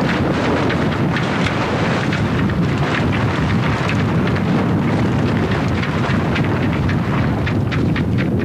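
Strong wind buffeting the microphone aboard a sailboat under way: a steady, loud rushing, with frequent short crackles that crowd together near the end.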